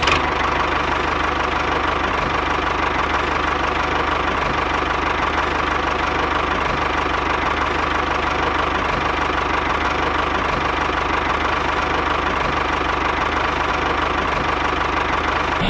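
Small engine of a mini tractor idling steadily at an even pace.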